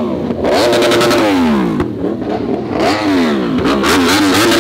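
Sport motorcycle engines revving hard as the bikes ride past. The pitch climbs and drops several times, with a run of quick blips in the second half.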